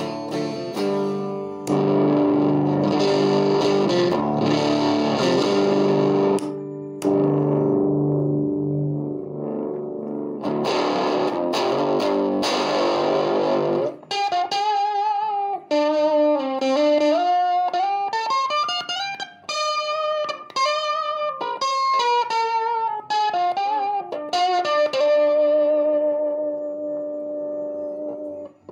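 Electric guitar played through a homemade Fender Blender clone, an octave fuzz pedal. For about the first half it plays heavily fuzzed chords, then single-note lead lines with bends and vibrato.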